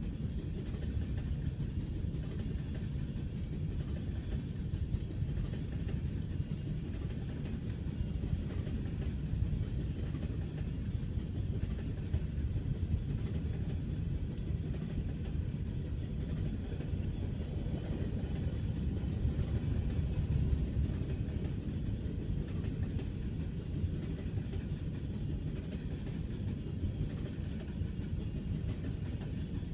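Freight train of BNSF covered hopper cars rolling past: a steady low rumble of steel wheels on rail.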